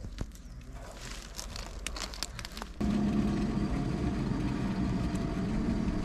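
Cable yarder's engine running steadily, cutting in abruptly about three seconds in after a stretch of faint clicks and rustling.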